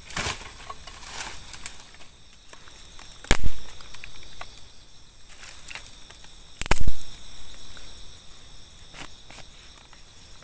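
Two sharp chops of a blade into bamboo, about three and a half seconds apart, the loudest sounds, amid rustling of leaves and sticks underfoot. Crickets sing steadily in the background.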